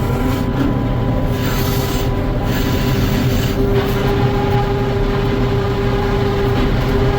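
Sawmill running, heard from the saw cab: a loud, steady mechanical rumble with a steady hum, and a higher tone joining it about four seconds in.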